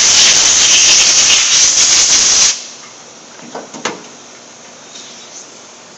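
Compressed-air blowgun blasting air over a spray gun's air cap with a loud, steady hiss that cuts off sharply about two and a half seconds in. A couple of light clicks follow a second later as the air cap is handled.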